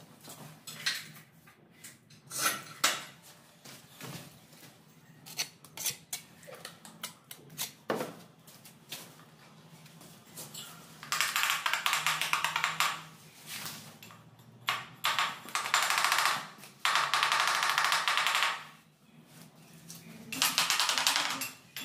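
Light clinks and knocks of ceramic skirting tiles being handled, then several bouts of harsh scraping, each one to two seconds long, in the second half.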